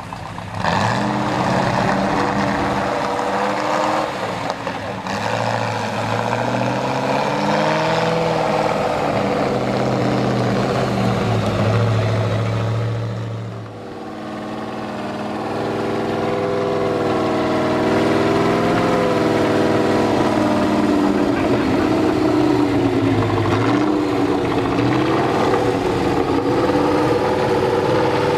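Tatra 805 truck's air-cooled V8 engine revving under load as the truck crawls over steep muddy ground, its pitch rising and falling with the throttle. About halfway through the engine note drops briefly, then picks up again.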